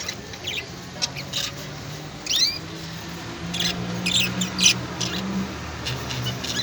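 Small birds chirping: many short, high calls, with one quick rising call about two seconds in.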